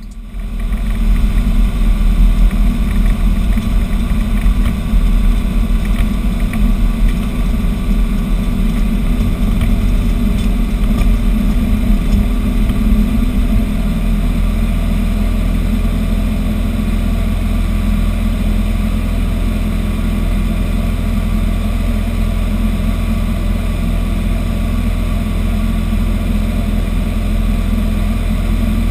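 Robin DR 400 light aircraft's piston engine and propeller at full throttle, around 2300 rpm, heard from inside the cockpit during the takeoff. The drone is uneven and rumbling for the first half, on the grass takeoff roll, and grows steadier about halfway through, once the aircraft lifts off and climbs.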